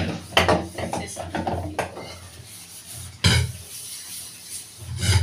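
Metal kitchen bowl and utensils clattering and knocking against each other and the sink while being scrubbed clean by hand; a string of sharp clanks, the loudest about three seconds in.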